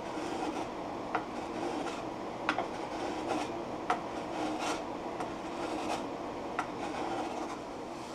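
Small hand plane scraping across the wooden rim of a Russian olive bowl in short strokes, with a few sharp ticks as the blade catches the wood.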